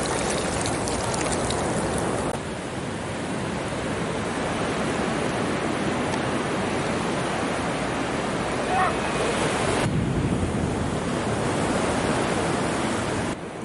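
Ocean surf washing up on a sandy beach, mixed with wind buffeting the microphone; the noise changes abruptly about two seconds in and again about ten seconds in.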